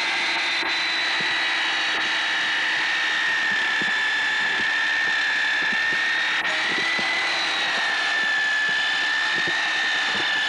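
A machine running steadily with a high whine that drifts slightly in pitch.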